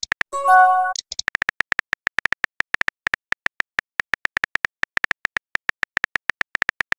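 Phone keyboard typing sounds from a texting app: rapid clicks, about seven a second, as a message is typed out letter by letter. A short chime sounds about half a second in as a message is sent.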